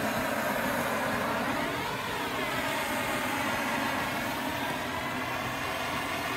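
Handheld gas blowtorch running with a steady hissing roar as its flame scorches wood, with a slight rise and fall in its tone about two seconds in.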